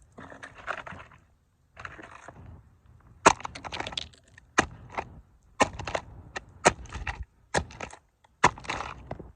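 Toy cars being crushed under combat boots: soft crunching at first, then a run of sharp cracks about once a second from about three seconds in.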